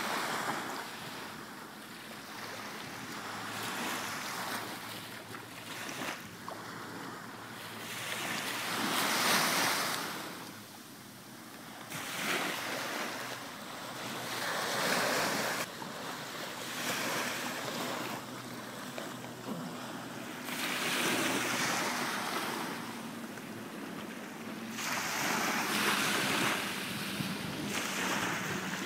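Small waves breaking and washing up a sandy beach, the surf swelling and easing every few seconds, with wind buffeting the microphone. A faint low drone of a distant motorboat runs under the surf in the second half.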